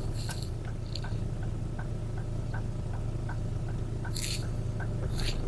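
Inside a moving car's cabin: steady low engine and road hum, with the turn-signal indicator ticking evenly at about three clicks a second. A short hissy rustle comes near the end.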